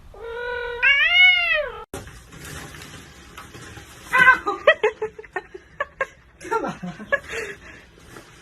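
A cat's long meow, its pitch rising and then falling, followed after a sudden cut by a run of short, irregular sounds and clicks.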